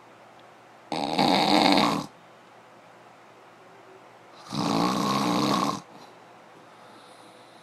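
Loud snoring: two long, rattling snores about three and a half seconds apart.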